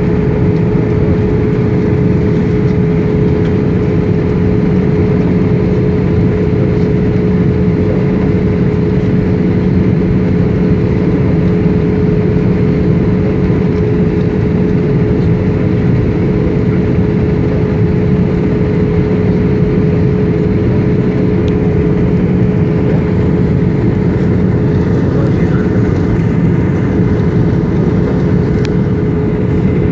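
Passenger jet airliner's engines running with a steady, loud drone and a constant hum that holds one pitch.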